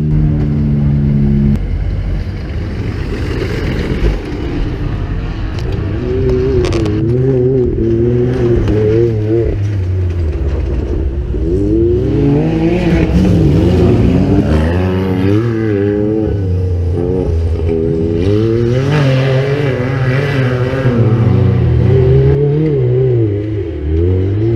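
Off-road buggy engines revving hard, their pitch climbing and dropping over and over with the throttle. For about the first second and a half an engine runs at a steady idle, then cuts off abruptly.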